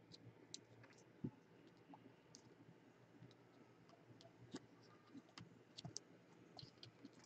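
Near silence broken by faint, scattered clicks and taps of rigid plastic card holders being handled and set down on a table, a few bunched together about six seconds in.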